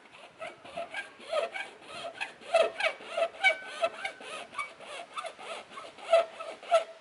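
Hand hacksaw cutting through an ABS plastic side skirt, with quick back-and-forth strokes at about four to five a second, stopping abruptly near the end.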